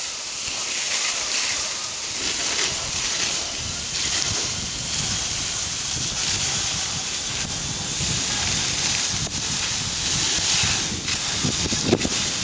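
Fell skis sliding and hissing over snow on a steady downhill run, with wind buffeting the microphone.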